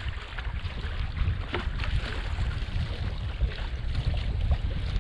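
Water rushing and splashing along the hull of a wooden sailing kayak under sail in a breeze, with a few sharper splashes. Wind buffets the microphone with a low rumble.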